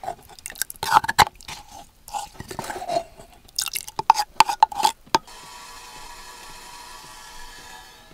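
Wooden spoon knocking and scraping against a clay mug, crushing viburnum berries in irregular strokes. About five seconds in, the knocking stops and a steady hiss takes over.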